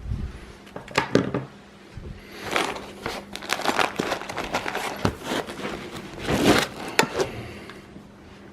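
Packaging crinkling and rustling, with sharp clicks and knocks, as parts of a 3D printer kit are handled and unpacked.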